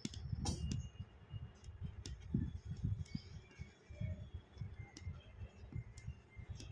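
Aari hook needle punching in and out of taut cloth while chain-stitching, making irregular soft clicks and taps with dull low bumps, and one sharper click about half a second in.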